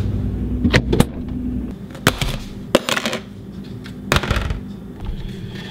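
About five sharp clicks and knocks, spaced a second or so apart, from a plastic food container, its snap-on lid and a metal fork being handled and set down on a stone kitchen counter.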